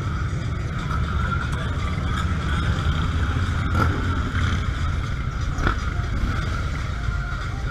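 Motorcycle engine running at low speed with a steady low rumble.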